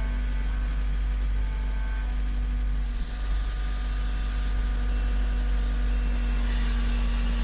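Heavy-equipment engine running steadily: a constant low rumble with a steady hum, joined by a little more hiss about three seconds in.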